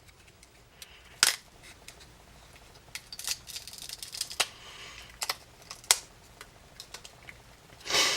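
Small plastic and metal parts of a Nikon COOLPIX W100 compact camera being handled and pried apart with small tools: scattered sharp clicks and scratchy scraping, with a longer, louder rustling burst near the end.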